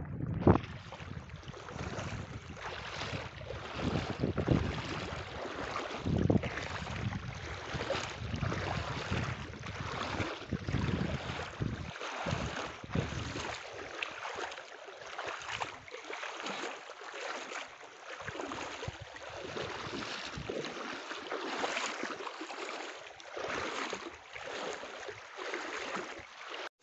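Wind buffeting the phone's microphone over the rush of a wide river's water. The low gusts are heavy in the first half and ease off about halfway through.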